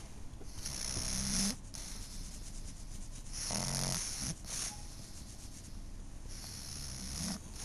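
Pug snoring in her sleep: three snores about three seconds apart, each cutting off sharply.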